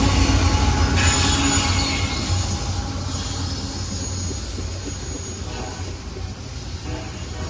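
Freight train rolling past on steel rails: a steady low rumble with a thin, high wheel squeal, growing gradually quieter.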